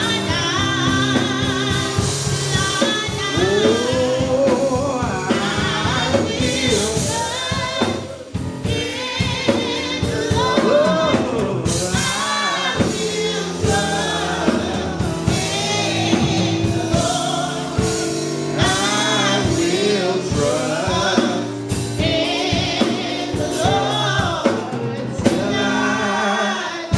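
Live gospel praise and worship: singers over a band with keyboard and drums, a steady beat.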